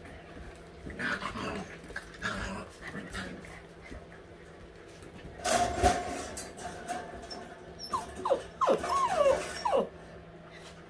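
Eight-week-old white Siberian husky puppies play-fighting, with small growls and yips. There is a louder burst about halfway, and a run of high, wavering whines near the end.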